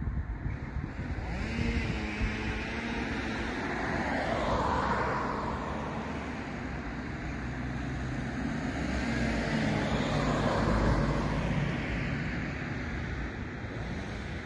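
Road traffic noise from a busy road: a steady wash of tyre and engine sound, swelling twice as vehicles pass, about four seconds in and again around ten seconds.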